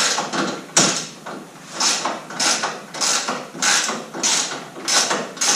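Ratchet wrench with a 13 mm socket clicking in short repeated strokes, about one every 0.6 seconds, as bolts are unscrewed.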